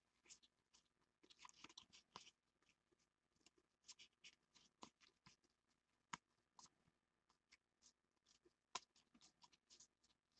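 Faint rustling and flicking of baseball trading cards being slid one behind another through the hands, in short irregular strokes. Two sharper card clicks stand out, about six and nine seconds in.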